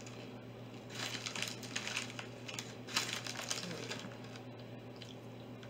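A bag of chips crinkling as it is handled, a run of crackly rustling from about one second in to about four seconds in.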